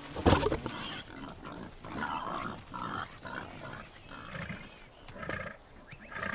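A loud thump at the start, then a series of short, breathy animal grunts, one or two a second.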